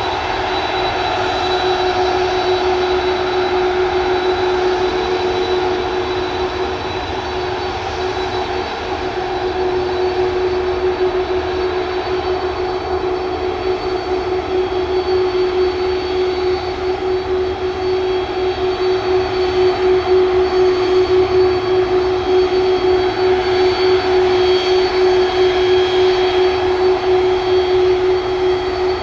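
Jet airliner taxiing with its jet engines running at idle: a steady whine and hum that grows a little louder in the second half as the aircraft rolls closer.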